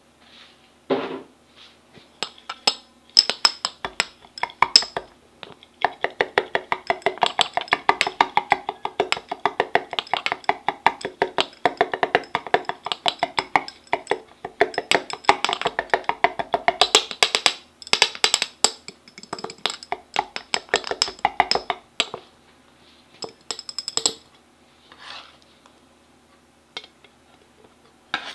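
A thin metal utensil knocking and clinking against the inside of a glass bottle as mango cubes are mashed to pulp. The knocks come several a second, in short spurts, with one long run in the middle.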